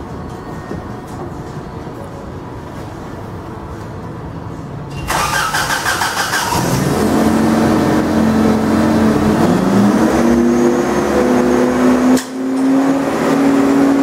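Zamboni ice resurfacer's engine starting about five seconds in, then running and revving up, rising in pitch about halfway through and holding steady there.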